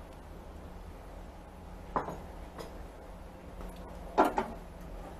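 Small enamelled saucepan knocking and scraping on a metal stovetop plate as it is handled: a sharp knock about two seconds in and a louder short clatter just after four seconds, when the pan is shifted by its handle.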